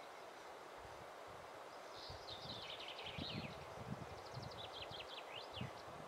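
Faint woodland ambience: a songbird sings two short phrases of quick whistled strokes. Soft, irregular low rustles and thuds come and go underneath.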